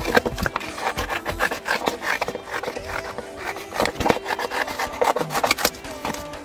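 Scissors cutting through paper in a quick, uneven run of crisp snips, with the sheet rustling as it is turned.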